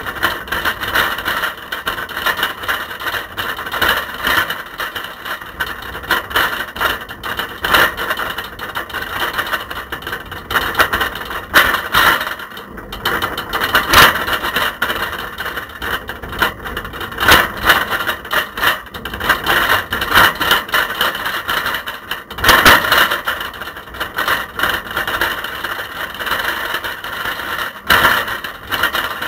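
Continuous loud rattling and clattering of a camera shaking in a bicycle's front basket as the bike rides over a paved path, with louder jolts now and then.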